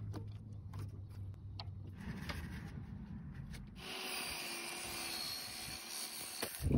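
Table saw with its blade tilted, bevel-ripping the edge of a cedar picket, heard faintly: a steady hiss of blade through wood starts about two-thirds of the way in and stops just before the end. Before the cut there is a low hum with a few light clicks.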